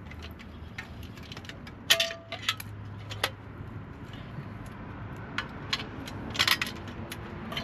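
Quarter-inch bolts and washers clinking as they are handled and fitted: scattered light metal clicks and taps, one with a brief ring about two seconds in.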